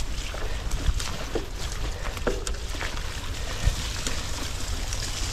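Ride noise from a Scott mountain bike on a grassy singletrack: a steady rush of tyres and brushing grass with scattered small clicks and rattles from the bike, over a low rumble of wind on the microphone.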